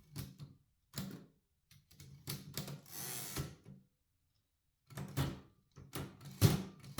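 Olympia SM-7 portable typewriter's tabulator mechanism being worked: a series of sharp mechanical clicks and clacks, with a short rattling run about three seconds in as the carriage moves.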